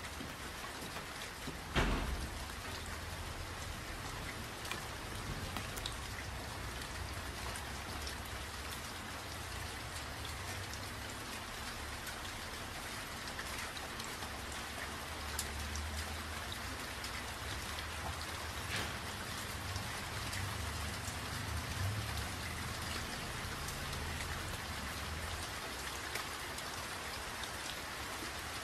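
Steady rain from an approaching typhoon, an even hiss with scattered drops ticking, over a low rumble that swells and fades. A single sharp knock about two seconds in.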